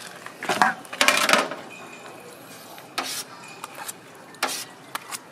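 Clear plastic cups crinkling and clacking as one is pulled from a stack, then a flat taho scoop scraping and knocking against an aluminium bucket as silken tofu is scooped out. The handling comes in short, separate sounds, the loudest about a second in.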